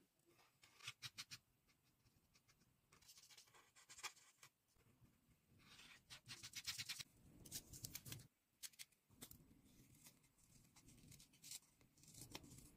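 Felt-tip alcohol marker scratching on paper in quick clusters of short strokes, with low rubbing and handling noise between them.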